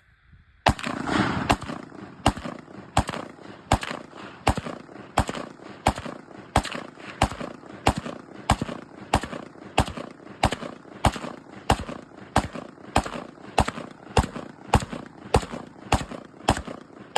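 Century Arms Mini Draco 7.62x39 pistol fired semi-automatically in a magazine dump: a steady string of sharp shots, about two a second, each with a short echoing tail, starting about a second in.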